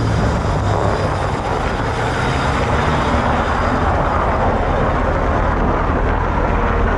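2002 Chevrolet Avalanche 4x4 pickup under way: a steady low engine drone under a loud rushing noise.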